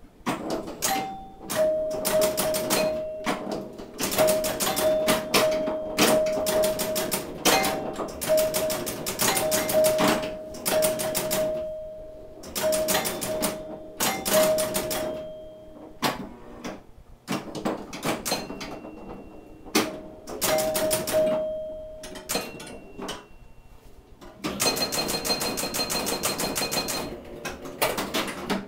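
1974 Williams Skylab electromechanical pinball machine in play: relays, solenoids and score reels clacking, with the scoring chimes ringing again and again. Near the end comes a dense run of rapid clatter and ringing lasting a couple of seconds.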